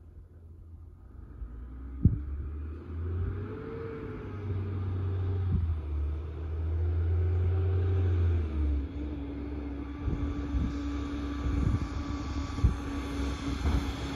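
Diesel side-loader garbage trucks approaching on a snowy road, their engine sound building as they come closer. The engine pitch glides up and down, then holds steady, over a low rumble, with a few sharp knocks, the loudest about two seconds in.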